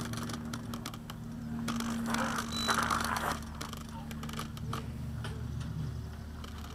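Handling noise from a ParkZone Stinson SR-10 RC plane carried by hand with its onboard camera: irregular clicks, knocks and rattles of the airframe and camera mount, over a steady low hum.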